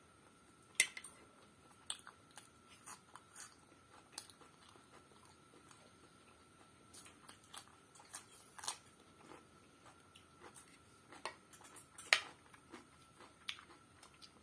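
Close-up eating sounds: chewing macaroni and biting crisp raw cucumber, with a metal spoon scraping and clicking on the plate. Sharp clicks come scattered throughout, the loudest about a second in and again near the end, over a faint steady high whine.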